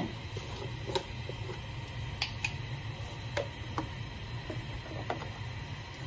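Scattered light clicks and ticks, about a dozen at irregular intervals, over a steady low hum, from a cook working at a gas stovetop beside a steel saucepan of heating milk.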